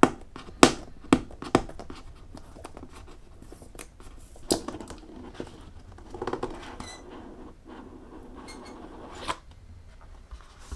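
Fingers clicking and scratching on the edge of a rigid cardboard box, with several sharp taps in the first two seconds. Then a knock and a stretch of rubbing as the tight-fitting lid slides up off the base, and a last click near the end.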